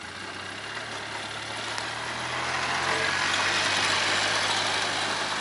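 A motor vehicle driving up close: a steady low engine hum with tyre and road noise that grows louder to a peak about three to four seconds in, then eases off slightly.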